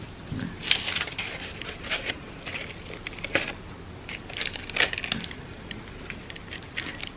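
Crepe paper rustling and crinkling in irregular bursts as petals are handled and pressed onto a glued centre, with small clicks and taps between.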